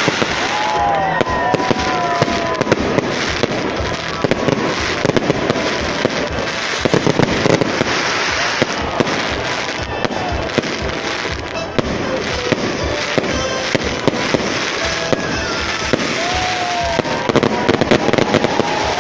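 Fireworks display going off: a dense, unbroken run of bangs and crackling from bursting shells.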